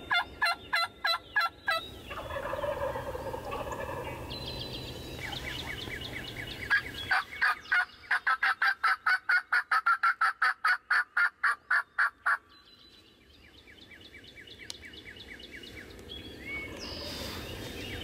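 Turkey yelping: a short quick run of calls at the start, then a long even series of yelps at about four a second in the middle, ending abruptly. Songbirds chirp faintly in the background.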